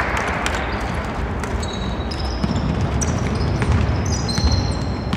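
Basketball bouncing on a hardwood court as a player dribbles, with many short high sneaker squeaks from players running.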